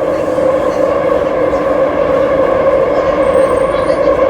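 Cabin noise of a CRRC Changchun-built MTR metro train running at speed: a loud, steady rumble and hum of wheels on rails and traction motors. A faint high whine comes briefly about three seconds in.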